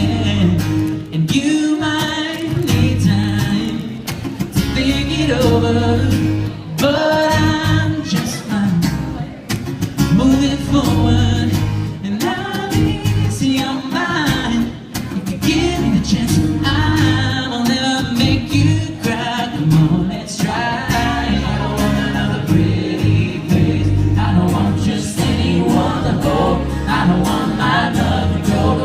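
Live pop music: a man singing over guitar and a steady bass line.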